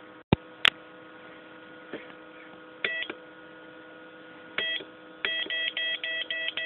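Electronic beeping over a steady electrical hum: a short double beep, another a couple of seconds later, then a quick regular run of beeps about four a second. There is a click near the start.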